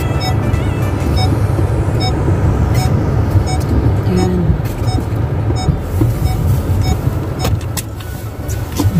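Car heard from inside the cabin as it moves slowly: a steady low rumble of engine and tyres, with a faint regular tick about every 0.7 seconds.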